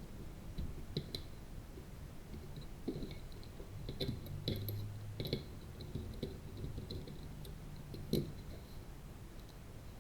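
Scattered small clicks and taps of hands handling and fitting the circuit boards and standoffs of a small satellite kit, over a faint low hum.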